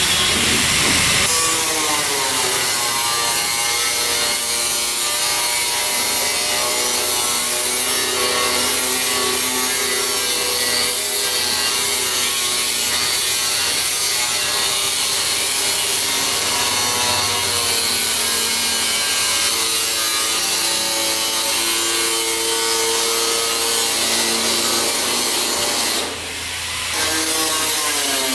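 Steel plate being cut with a power cutting tool: a loud, continuous grinding hiss with ringing tones that drift in pitch as the cut goes on. About 26 seconds in the noise briefly drops, then picks up again with the pitch rising.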